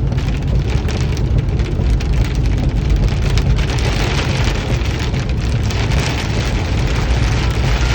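Heavy rain falling steadily, a dense patter of drops over a steady low rumble.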